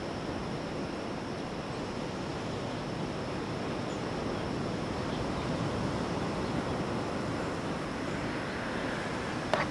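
Ocean surf washing steadily on the beach, mixed with wind. A single sharp click just before the end.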